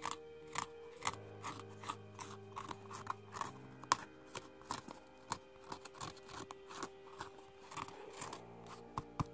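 Old slime with a dried, leathery skin being pressed and squeezed by fingers, giving irregular sharp clicks and crackles several times a second. The odd noise is the sign that the surface has hardened into a skin and is no longer regular slime.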